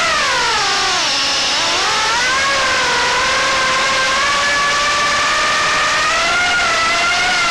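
Small FPV quadcopter's brushless motors and 3-inch propellers whining in flight. The pitch drops about a second in as the throttle eases off, climbs back, then holds nearly steady.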